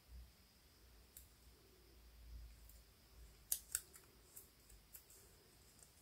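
A few faint, crisp clicks and rustles of a small piece of paper being folded and creased between the fingers, two sharper clicks close together about halfway through, against near silence.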